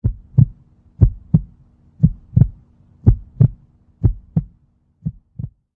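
Heartbeat sound effect: six double thumps (lub-dub), about one a second, over a faint steady hum, with the last pair quieter.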